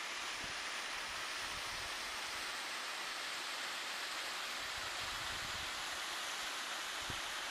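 Steady rush of a mountain creek sliding over granite slabs and spilling down small cascades.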